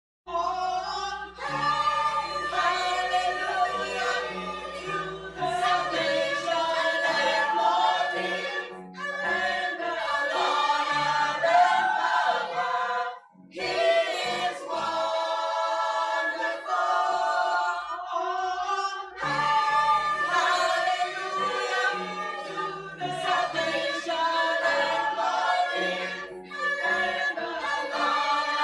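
Church choir singing in harmony, starting suddenly out of silence, with a short break about halfway through.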